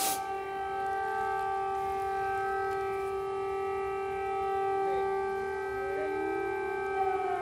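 Several air raid sirens sounding. One holds a steady wailing tone, fainter sirens rise in pitch behind it from about five seconds in, and near the end the main siren begins to fall in pitch.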